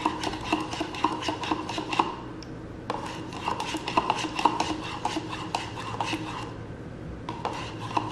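A metal spoon stirring a drink in a plastic cup, clinking quickly and repeatedly against the cup's side, about five clinks a second. The stirring pauses briefly twice, about two seconds in and near the end.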